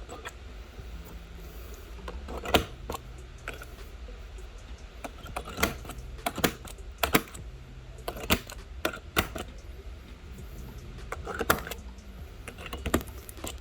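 Sharp, irregular clicks and taps of a glass breaker tool cracking an iPhone 11's back glass, breaking it up so the pieces can be picked off.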